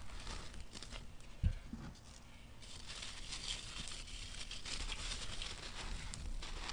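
Hands scooping and crumbling dry, gritty sand and cement clumps: a dull thump about a second and a half in, then a steady fine gritty crunching and sifting of grains.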